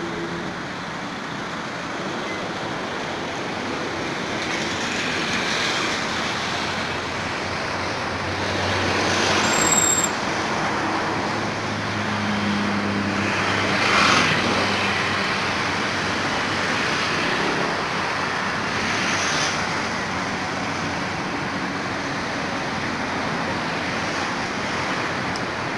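Steady road traffic noise, with louder surges of passing vehicles about ten and fourteen seconds in.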